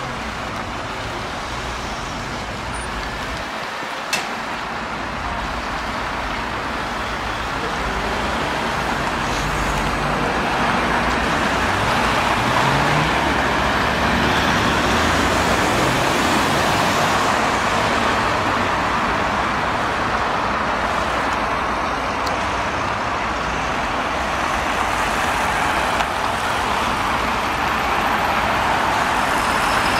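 City street traffic: cars driving past in a steady wash of tyre and engine noise, growing louder about ten seconds in as vehicles pass close by. A single sharp click sounds about four seconds in.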